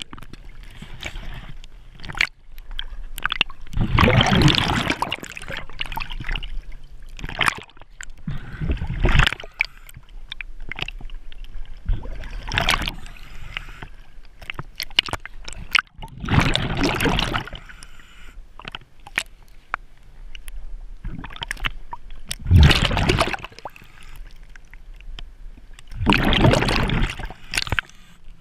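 A diver's exhaled air bubbling out in loud bursts about every four to five seconds, with gurgling, sloshing water between the breaths.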